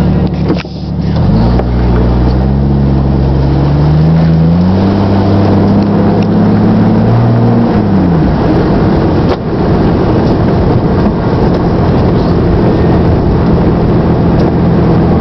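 1997 Jeep Grand Cherokee ZJ's 4.0-litre straight-six through a glasspack in place of the factory muffler, accelerating on the road. The exhaust note climbs in pitch over several seconds, holds, then drops off about eight seconds in to a rougher, noisier sound before settling to a steady cruising drone.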